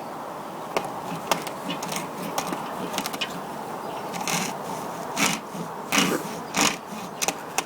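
A hacksaw blade scraping and sawing into the leather cover of a sliotar (hurling ball), in irregular scratchy strokes.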